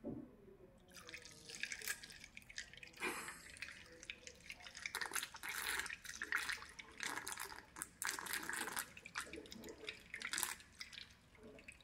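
Water poured into a plastic funnel, splashing and trickling unevenly down the fill pipe as the cooling-water tank of a diode laser machine is filled.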